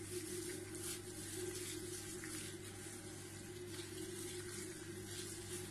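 Faint wet squelching of a plastic-gloved hand working mutton pieces through a thick yogurt and spice marinade in a glass bowl, a soft squish every second or so, over a steady low hum.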